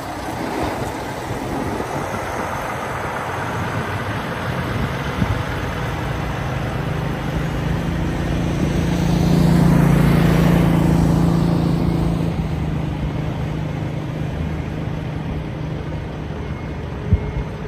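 Kenworth semi tractor's diesel engine running at low speed as it backs a flatbed trailer toward a loading dock; the engine hum swells about halfway through and then eases off. A short sharp pop comes near the end.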